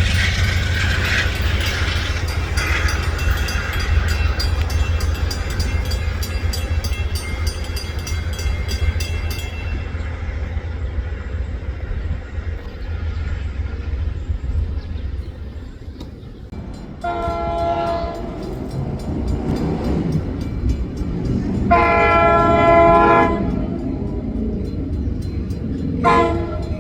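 Train horn with several tones sounding together, blown three times: two blasts of about a second and a half, then a shorter one starting near the end. Under it is a loud low rumble, with fast clicking for the first third.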